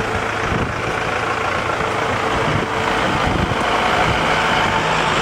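Vehicle engines running steadily over road noise, with a low engine hum and a few held tones.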